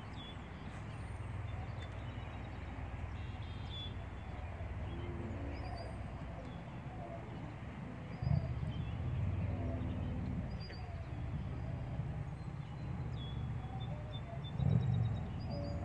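Wind rumbling on the microphone, with small birds chirping in short repeated calls; the wind rumble swells louder about eight seconds in and again near the end.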